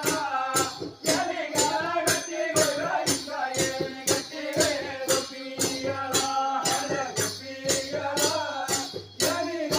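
Tamil folk dance music: a melody line over a steady beat of jingling, rattling percussion at about four strikes a second.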